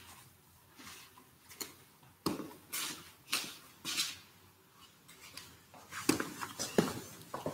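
Footsteps and the handling of objects being picked up and carried: a string of short, irregular scuffs and knocks, coming more often near the end.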